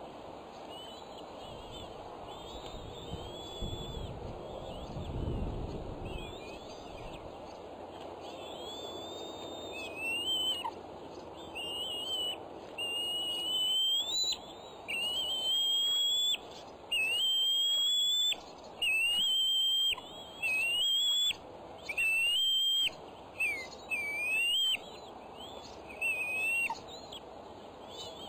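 Bald eagles calling at the nest: a series of high, thin whistled calls, each about a second long and often rising at the end, repeating roughly every second and a half from about ten seconds in, with fainter calls before that.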